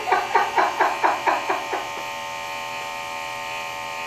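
Electric hair clippers buzz steadily while a man laughs in a quick run of short bursts, about five a second, for the first two seconds; after that the clipper's buzz carries on alone.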